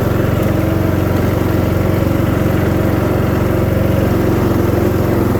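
Single-cylinder 13.5 hp Briggs & Stratton engine of a Craftsman riding mower running steadily at a constant speed.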